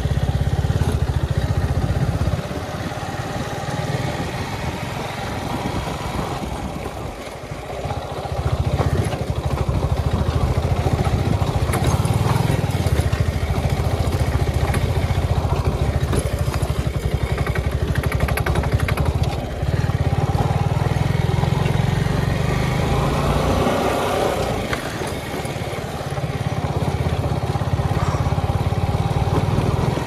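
Suzuki Gixxer SF single-cylinder engine running as the motorcycle is ridden along a dirt trail. The engine eases off between about two and eight seconds in and again briefly near the end, then pulls back up with a rising note.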